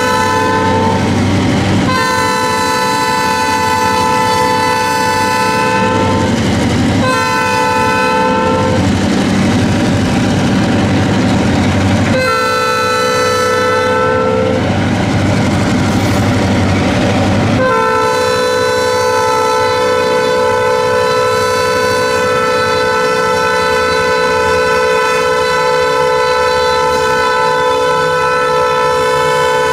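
Diesel locomotive horn of Grand Trunk Western 5846 blowing for a grade crossing: a multi-note chord in separate blasts, long, short, long, then a final blast held on from about two-thirds of the way through. A low rumble of the moving train fills the gaps between blasts.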